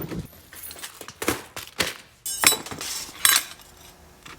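A handful of sharp metallic clinks and knocks, about five spread over a few seconds, some ringing briefly: tools and window-lift cable parts being handled on a workbench.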